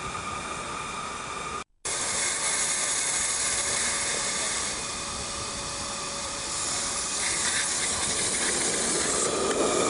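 Miniature live-steam locomotive hissing steadily as it blows off steam, with a brief break about two seconds in.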